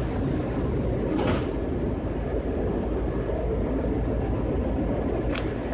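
Steady rumble of a Washington Metro subway car running on the rails, heard from inside the car. Two brief sharper noises break through, about a second in and near the end.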